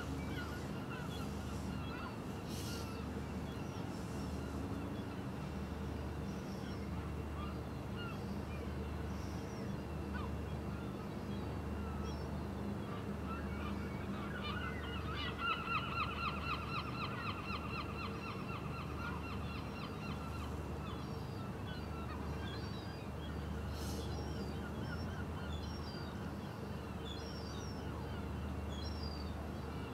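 Birds calling over a steady low hum, with a loud run of rapid repeated honking calls around the middle that fades out over a few seconds.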